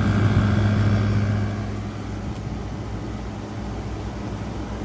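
2023 General Electric 5,000 Btu window air conditioner running on high cool, about half a minute after starting: a steady low hum under the rush of its fan, a little quieter from about a second and a half in.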